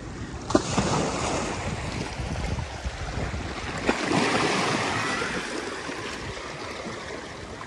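Sea water washing against a rocky shore, with wind buffeting the microphone. The wash swells a little about halfway through and eases off towards the end.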